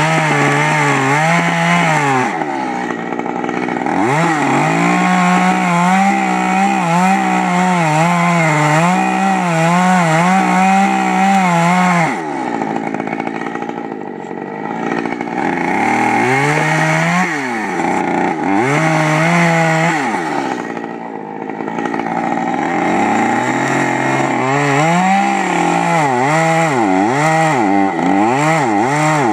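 Small petrol chainsaw running with its engine speed rising and falling again and again. It drops back to slower, quieter running twice, about midway and again a little later.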